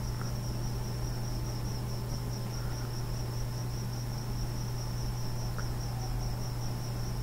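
Steady background noise with no speech: a high, rapidly pulsing trill over a strong low hum.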